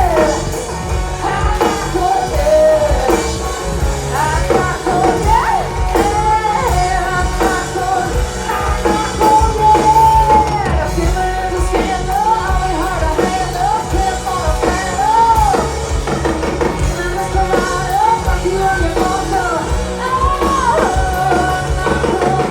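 Live country-rock band music at full volume: drums and bass with a lead melody that slides up and down in pitch.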